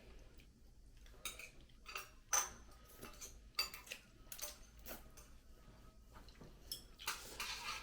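Eating utensils clinking and tapping against bowls and dishes, a dozen or so light, irregular clinks, some with a brief ring, with a short hiss-like stretch near the end.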